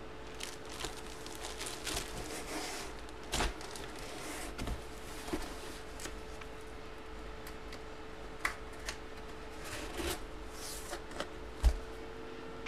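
Handling noises: a clear plastic bag holding a jersey crinkling and rustling, with scattered knocks and taps as a cardboard box is handled. A faint steady hum runs underneath.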